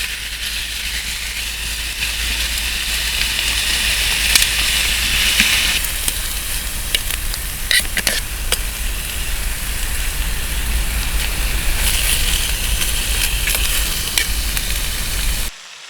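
Chicken breast frying in oil in a pan over a small wood fire: a steady sizzle with scattered sharp pops and crackles. It cuts off abruptly near the end.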